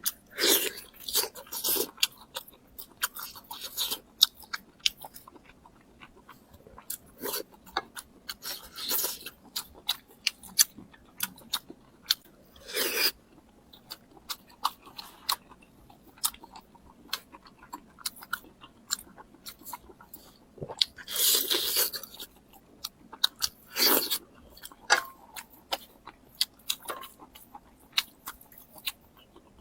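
Close-miked eating: crunchy chewing and biting with many sharp mouth clicks, and a few longer, louder crunches, one around the middle and two more later on.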